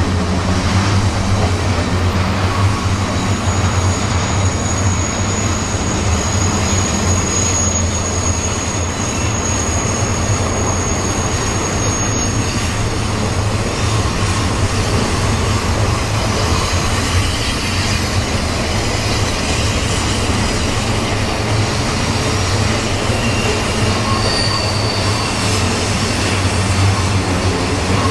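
Train rolling by: a steady, loud rumble of wheels on rails. A thin, high wheel squeal holds from a few seconds in until about twelve seconds in, and short squeals come again near the end.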